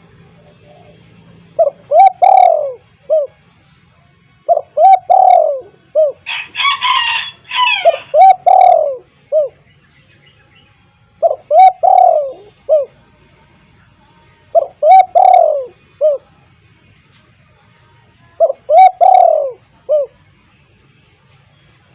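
Spotted dove cooing in full voice: six repeated phrases of a few short notes with a long falling note in the middle, about three seconds apart. A brief, higher and noisier burst breaks in between the second and third phrases.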